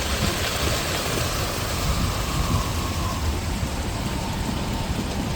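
Steady rush of floodwater pouring out through a drain outlet that has just been cleared of a blocking nylon bag.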